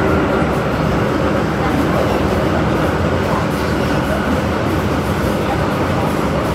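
MTR M-train electric multiple unit running between stations: steady rumble of wheels on the track with the hum and whine of the traction motors.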